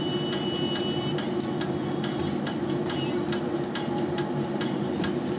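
Spring rolls frying in a wok with very little oil, sizzling faintly, while a spatula scrapes and taps against the pan in scattered clicks, over a steady low hum.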